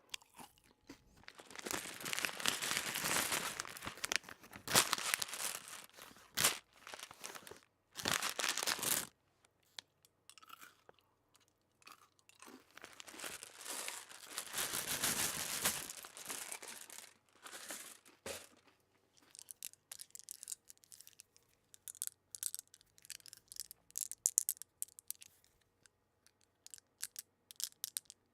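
Someone eating crunchy food, close up: long stretches of loud crunching chewing with sharp individual bites between them, thinning out to small scattered crackles in the last third.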